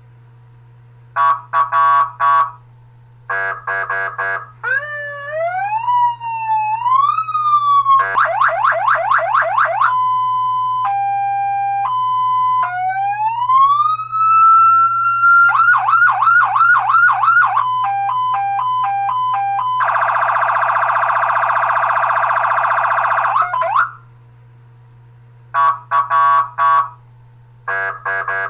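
Electronic emergency-vehicle siren cycling through its patterns, with short pauses between them: short beep groups, a stepped rising wail, a fast yelp, a slow two-tone hi-lo, then a long steady horn-like blast. A low steady hum runs underneath.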